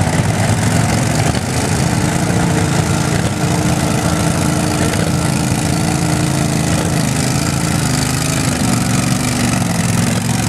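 Small garden tractor engine running under load in a tractor pull as the tractor works its way down the track. The pitch holds steady, then sags somewhat in the later seconds.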